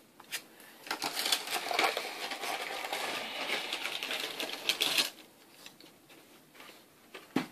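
A deck of sleeved Yu-Gi-Oh cards being shuffled in the hands: a rapid, dense clicking rattle of cards slapping against each other, starting about a second in and stopping abruptly about four seconds later.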